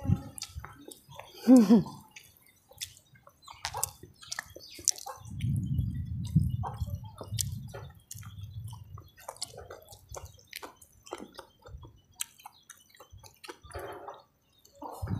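Close-miked eating sounds: wet mouth clicks, lip smacks and chewing as fried carp, rice and raw vegetables are eaten by hand. A short pitched call bending in pitch about a second and a half in is the loudest sound, and a low rumble runs for a couple of seconds around the middle.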